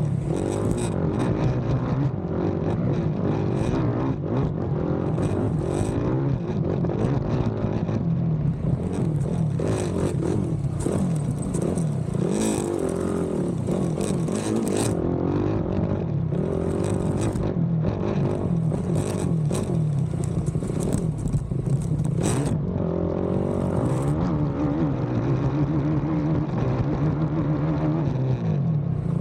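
Racing ATV engine heard onboard, revving up and down continuously as the quad is ridden hard over a rough cross-country track, with scattered knocks and clatter from the terrain.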